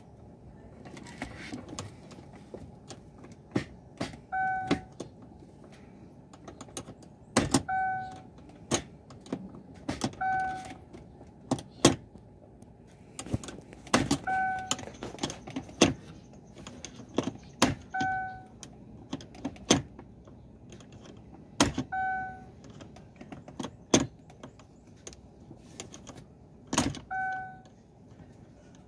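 Sharp plastic and metal clicks from a Chevrolet's automatic gear shifter assembly being worked by hand. A short electronic chime from the car sounds about seven times, each just after a click.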